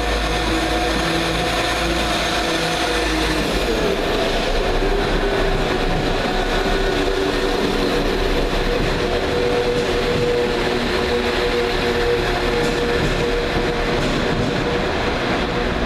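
London Midland Class 172 Turbostar diesel multiple unit pulling out of the station, its underfloor diesel engines running steadily and its wheels rolling past, with the engine note changing about four seconds in.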